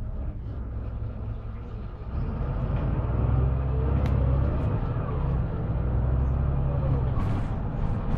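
Mercedes-Benz Conecto LF city bus's OM926LA diesel engine with its ZF 6HP502 automatic gearbox, heard from inside the bus: the engine pulls harder from about two seconds in as the bus accelerates, with a rising whine over the rumble, and eases back shortly before the end.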